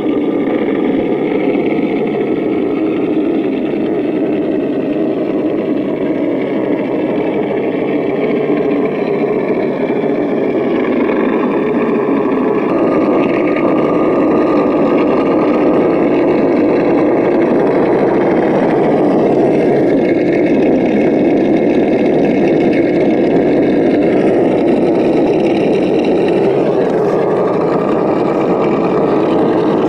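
Simulated V8 engine sound from the RC crawler's sound module, running steadily and shifting in pitch a few times as the truck drives.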